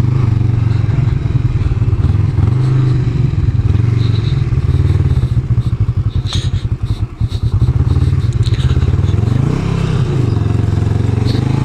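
Kawasaki Vulcan 500's parallel-twin engine running at low revs as the cruiser is ridden over dirt, with scattered clicks and clatter. The engine note sags and turns lumpy about halfway through, then rises and falls back with the throttle about nine seconds in and again near the end.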